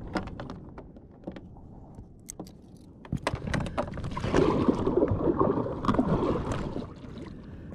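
Light clicks and taps of fishing tackle being handled, then a kayak paddle dipping and splashing through the water close by, stroke after stroke, for about three seconds from around four seconds in, the loudest part.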